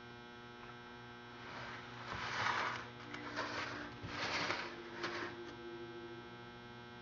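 Steady electrical hum, with four short bursts of rustling noise in the middle.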